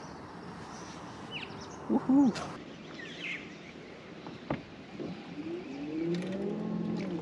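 Birds calling along a tree-lined riverbank: a short low arched call about two seconds in is the loudest, followed by brief high chirps and a longer wavering call near the end. A few faint sharp clicks are heard in between.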